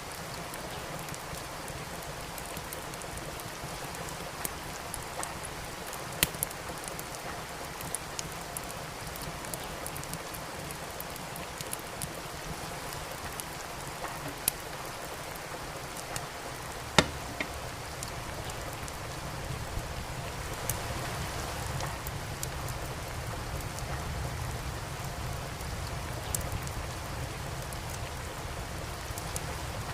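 Steady rain with a wood fire crackling: scattered sharp pops over an even hiss, the loudest about halfway through. A low rumble builds in the second half.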